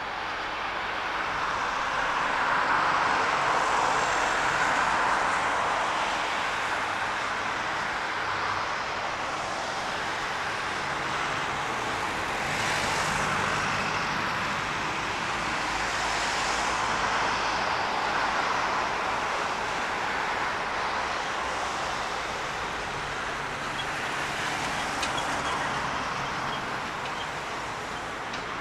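Airbus A380's four jet engines, a steady broad roar that swells slightly and holds.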